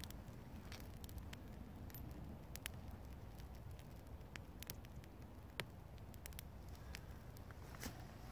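Small fire catching in a bundle of fine, damp twigs held over the flame: faint, irregular crackles and snaps.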